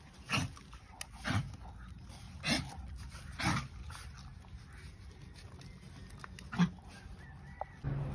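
Dogs making short whimpering sounds, about one a second for the first few seconds, then a sharper, louder one near the end.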